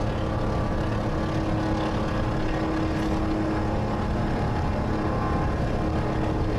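Detroit Diesel 12V-71N two-stroke V12 with dual 6-inch straight stacks in a 1975 Peterbilt, working under load at freeway speed: a steady, loud drone, heard through the windshield of a car following it.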